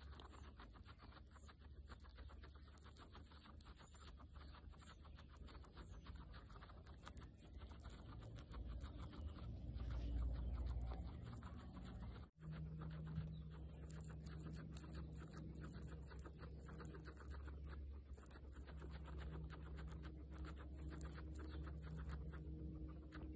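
Guinea pigs chewing fresh grass close to the microphone: rapid, fine crunching clicks. The sound breaks off briefly about halfway through, and a faint low hum runs under the chewing afterwards.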